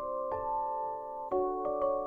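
Gentle lullaby-style music of struck bell-like mallet notes, a few notes a second, each ringing on.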